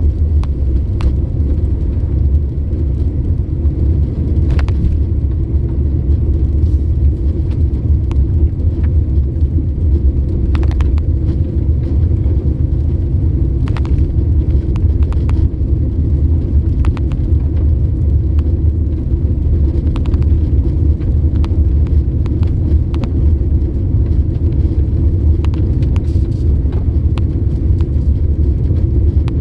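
Car driving, heard from inside the cabin: a steady low rumble of road and engine noise, with scattered light ticks and rattles.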